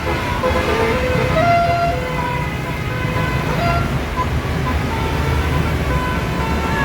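A tour bus's basuri horn playing a tune in short notes of changing pitch, over the low sound of the bus engine running.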